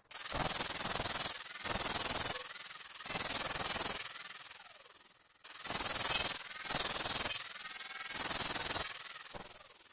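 Repeated rubbing strokes of a hand tool over a cement-patched wall, about one stroke a second, with a short pause about four seconds in.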